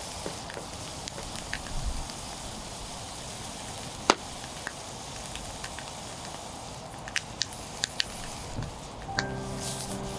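Meat sizzling over a wood fire, a steady hiss broken by scattered sharp pops and crackles, one loud pop about four seconds in. Music comes in near the end.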